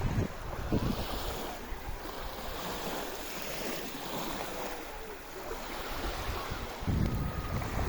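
Sea waves washing in, a steady rushing wash. Wind buffets the microphone at the start and again from about seven seconds in.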